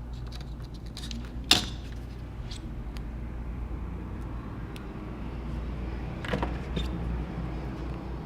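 Small clicks and rustles of hand tools and adhesive tape being handled during a repair, with one sharp click about a second and a half in and a few softer ones near the end, over a steady low hum.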